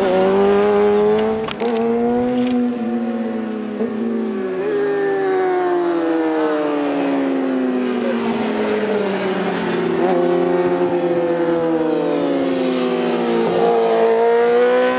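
Racing motorcycle engines of the 600cc Superbike class at high revs as bikes ride through the corner, several overlapping, their pitch falling and climbing with throttle and gear changes. A few sharp clicks about two seconds in.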